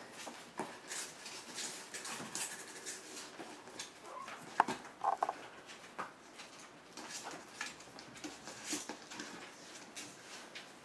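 Month-old puppies moving about in a cardboard box, their paws scratching and pattering on cardboard and floor. There is a sharp tap about four and a half seconds in, then a couple of short, high puppy squeaks.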